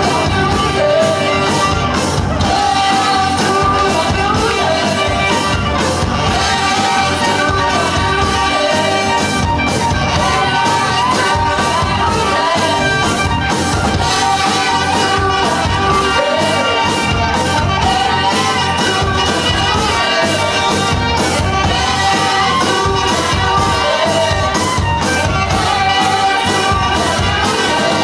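Live band playing amplified rock music, with electric guitar, bass, a drum kit keeping a steady beat, and singing at the front.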